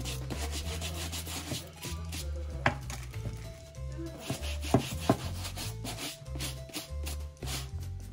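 A small stiff brush scrubbing suede on a boot in quick repeated strokes, working in suede shampoo, with a few sharper knocks about a third and two thirds of the way in. Background music with a steady bass line plays underneath.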